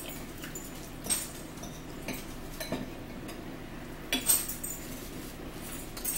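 Metal forks clinking and scraping on plates and a bowl while people eat, a few separate clinks with the loudest about four seconds in, over a low steady hum.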